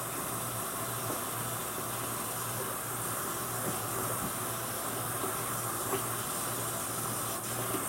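Tap water running steadily into a sink, a continuous hiss.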